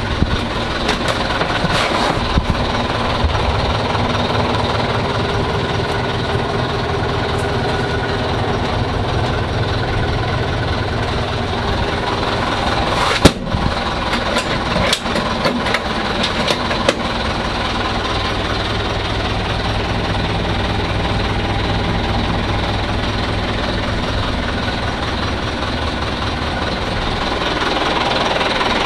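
1996 Mitsubishi Fuso Canter fire truck's engine idling steadily, with a few sharp knocks, the loudest about halfway through.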